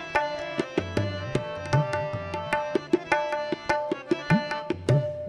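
Instrumental kirtan passage: tabla playing a quick run of strokes over harmoniums holding steady notes, with one bass-drum stroke sliding up in pitch about four seconds in.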